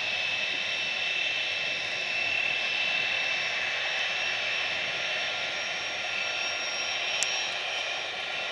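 Jet engines of a Boeing 747-400 freighter running at taxi power: a steady high whine over an even rushing hiss. A short click comes near the end.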